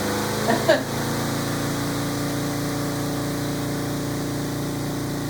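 Spin dryer of a Costway portable twin-tub washer running at speed with a steady motor hum. A brief, louder higher-pitched sound cuts in about half a second in.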